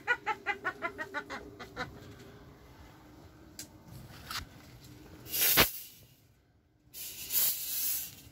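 A witch's cackling laugh, rapid high 'ha-ha-ha' pulses about six a second, fading away over the first two seconds. About five and a half seconds in comes a short loud rustle, followed by a moment of dead silence and then softer rustling.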